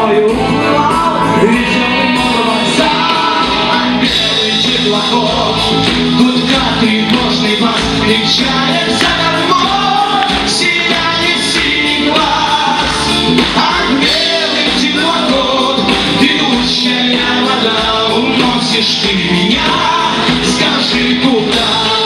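A live band playing a song: singing over electric guitars, bass guitar, keyboard and drum kit.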